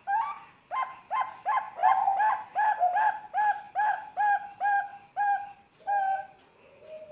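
Young zebra dove (Bangkok perkutut, about three months old) singing: a quick series of short, rolling coos, two to three a second, for about six seconds.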